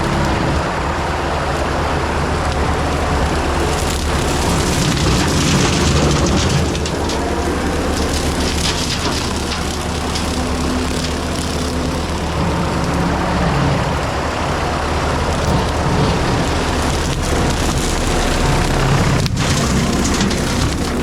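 John Deere 326E skid steer's diesel engine running under load while its hydraulic brush cutter spins and shreds brush, a steady, dense rushing noise over the engine's drone.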